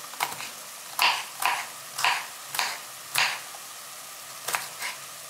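Kitchen knife chopping a raw carrot on a wooden cutting board: about eight sharp chops at an uneven pace, roughly one every half second to a second.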